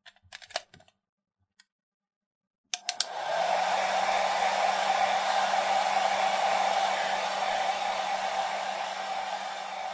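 A few faint clicks, then a couple of seconds of silence, then about three seconds in a hair dryer starts and runs steadily: blowing air with a steady hum under it.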